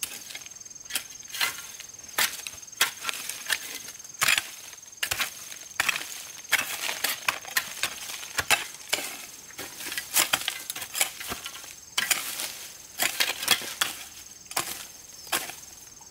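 Irregular series of sharp chopping knocks on wood, some coming in quick clusters, over a thin, steady, high cricket tone.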